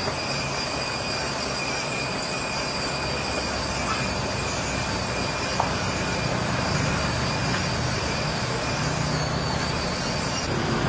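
Radio-controlled Caterpillar excavator on the move: a steady high whine from its electric drive over an even mechanical hum.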